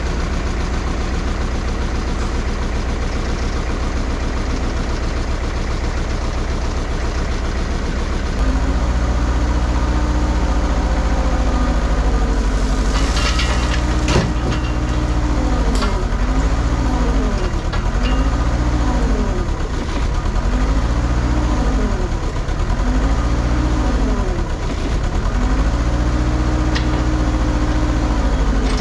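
Kubota KX161 mini excavator's diesel engine running, throttled up about eight seconds in, then sagging and recovering in pitch again and again, about every two seconds, as the hydraulics are worked. This is the engine bogging under load, which the owner takes for an engine that is not making enough power. A single sharp click comes about fourteen seconds in.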